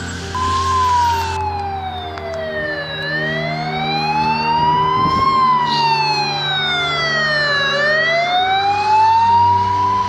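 Ambulance siren on a slow wail, the tone falling and rising in long sweeps of about five seconds each, with a low steady hum underneath.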